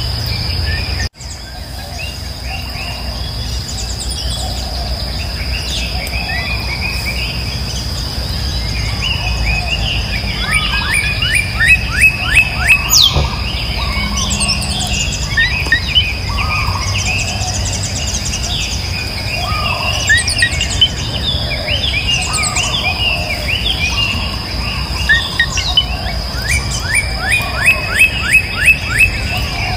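Many birds chirping and calling, with quick runs of repeated chirps about midway and again near the end, over a steady high-pitched insect drone.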